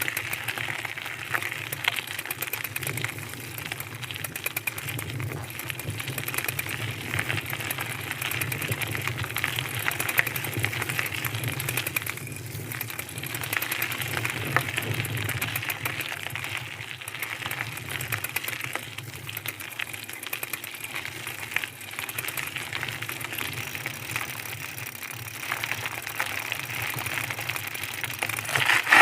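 Bicycle being ridden: a steady rattle of the moving bike with fine, rapid clicking and tyre noise, without a break. A brief louder burst comes right at the end.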